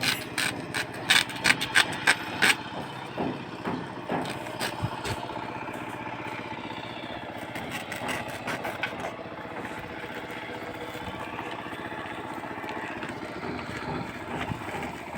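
A quick run of sharp knocks or clanks for the first two and a half seconds or so, then a machine engine running steadily.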